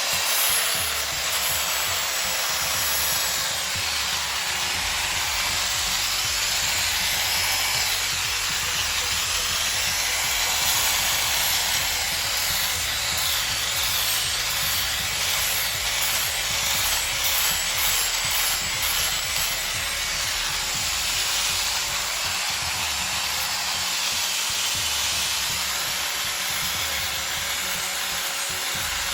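Power sander running steadily against a large wooden tree root, a continuous abrasive hiss over the motor's hum.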